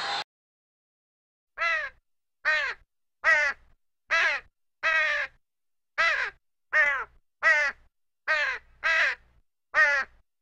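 Crow cawing over and over: about eleven harsh caws roughly one a second, starting a second and a half in, each call dropping in pitch, with dead silence between the calls.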